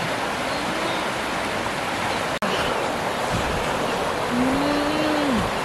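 Shallow river rushing steadily over rapids.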